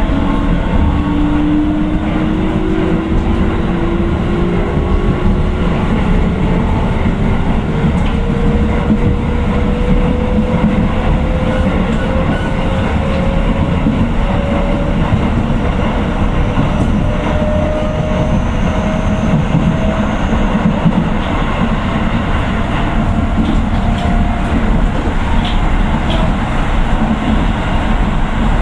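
Keio 9000 series electric train running, heard from inside the car: a steady rumble of wheels on rail with a faint motor whine from its Hitachi IGBT inverter drive that rises slowly in pitch as the train gathers speed, and a few rail-joint clicks.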